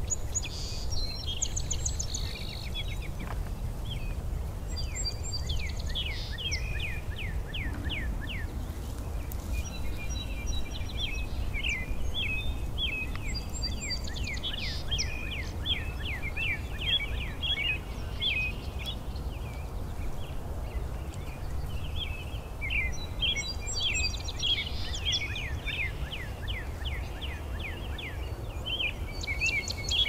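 Several songbirds singing at once in a spring morning chorus, with quick runs of short falling notes and repeated chirps overlapping all the way through. A steady low rumble lies underneath.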